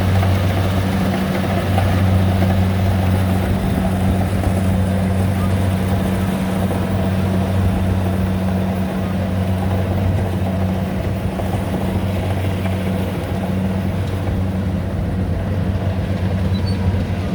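Rice combine harvester's engine running steadily with a deep, even hum, which weakens a few seconds before the end.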